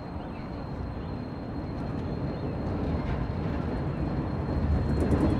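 Tram approaching along its rails, a rumble that grows steadily louder as it draws near.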